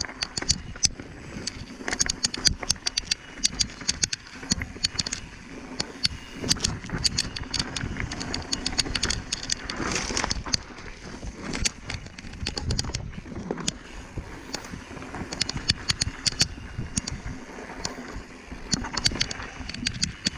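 Bicycle riding over rough ground: rapid, irregular clicks and clatter from the bike, over steady noise.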